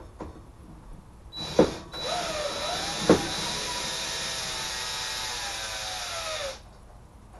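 Cordless drill backing a screw out of a ceiling light fixture. It runs for about five seconds, starting a little over a second in, with a brief break soon after it starts. Its whine shifts in pitch under load and slides down as it stops. Two sharp clicks come during the first half of the run.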